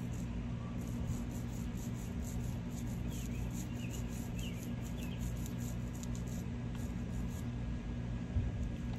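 A steady low mechanical hum, with a faint, fairly regular high scratching that stops about seven seconds in and a few short high chirps in the middle.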